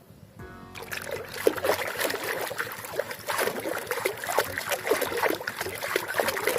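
Water splashing and trickling as a muddy toy tank is washed by hand, with many small clicks and knocks of the plastic toy, starting about a second in.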